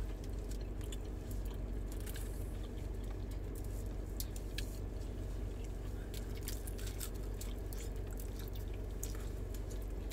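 Close-up chewing and wet mouth clicks of people eating pizza with ranch dip, scattered irregular smacks over a steady low hum inside the car.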